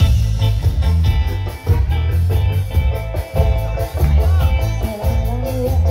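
Live band music played loud through stage PA speakers, with a heavy bass line and a steady beat.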